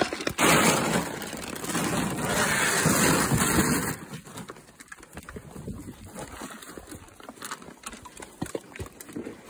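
A loud rushing noise for about three and a half seconds, then quieter scattered crunching of horses eating grain from a feed tub.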